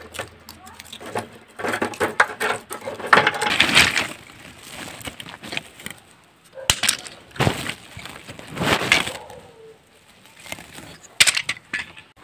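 Dry kindling being handled: bark strips and sticks crackling and clattering in several irregular bursts, with one sharp snap about halfway through.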